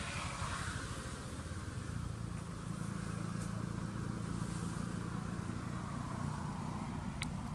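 Steady low engine hum with a faint hiss over it, and a single sharp click near the end.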